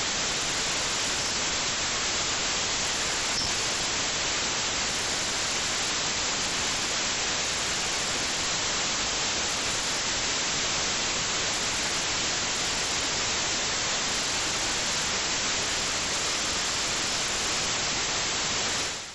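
Steady electronic hiss, like static, from a small low-quality camera's built-in microphone, with no engine or other sound standing out above it. It fades out just before the end.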